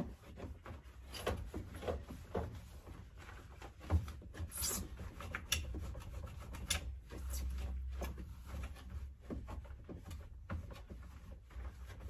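Gloved hands rubbing and scrubbing in the plastic detergent drawer of a Beko washing machine, with irregular small clicks, knocks and scrapes.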